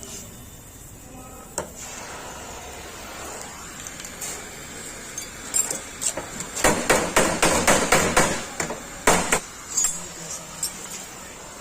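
Hand hammer striking car body sheet metal, as in beating out a dent: a quick run of about a dozen sharp blows a little past the middle, followed by a short pause and a couple more.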